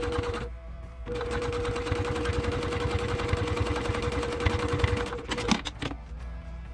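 Brother PQ1500SL straight-stitch sewing machine running at speed through fabric: a steady motor whine under rapid needle ticks. It pauses briefly about half a second in, runs again for about four seconds, then stops with a few sharp clicks.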